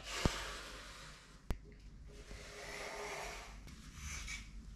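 A pencil scratching along the edge of a template laid on a plywood sheet, with two sharp taps, one just after the start and one about a second and a half in. Near the end the template scrapes and rattles as it is lifted off the board.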